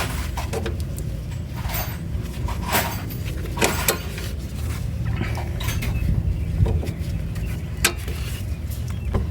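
Hand tools and metal parts clinking and tapping, with scattered sharp clicks, as a bolt is fitted to a brake hose bracket. A steady low rumble runs underneath.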